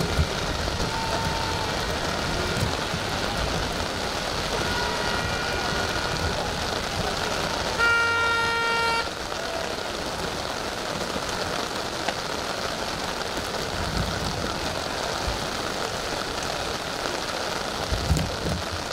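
Steady rain hiss, with a single horn blast about a second long near the middle.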